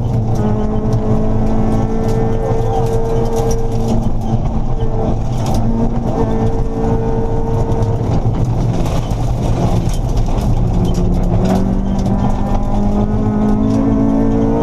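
Honda Civic rally car's engine held at high revs, heard from inside the cabin at speed on a gravel stage; the revs dip briefly a few times, sag about ten seconds in, then climb again near the end. Occasional sharp clicks of gravel hitting the car.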